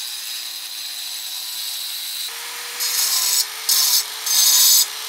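Electric angle grinder running with a steady whine, then, about two seconds in, cutting into stone in four short passes, each much louder and harsher than the whine between them.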